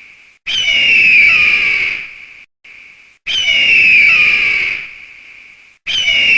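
Eagle screaming: a high call that starts suddenly, drops in pitch and trails off, repeated at even intervals about every two and a half seconds. There are three calls, the last beginning near the end.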